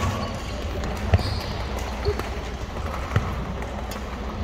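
A few sharp knocks and thuds about a second apart, echoing in a large gymnasium, over a steady murmur of background chatter: the sounds of badminton play on a hardwood court.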